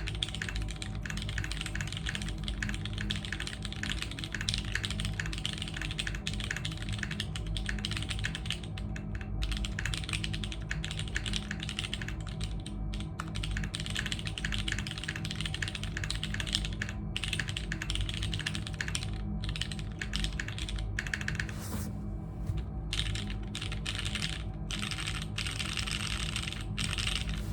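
Continuous typing on a Keebscape Solaris custom mechanical keyboard: lubed, filmed and spring-swapped Cherry MX Brown tactile switches in a top-mount case with a polypropylene plate, DCS-profile keycaps and Knight v4 stabilizers. Fast, even keystrokes with a few short pauses.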